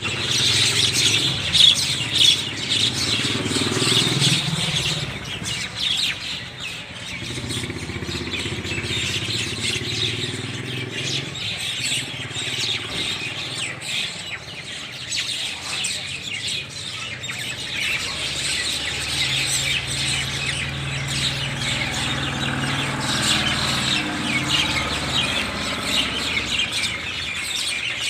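A flock of mynas chirping and calling continuously. A low engine hum from a passing motor vehicle comes and goes underneath.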